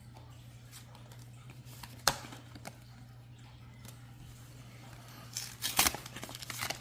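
Foil Pokémon booster-pack wrapper being handled and cut open: a single sharp snip about two seconds in, then a short spell of crinkling foil near the end.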